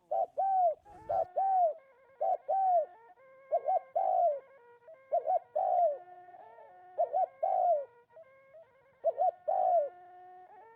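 A dove cooing over and over in short, rounded notes, often two close together, about one call a second, with a faint steady tone underneath from about two seconds in.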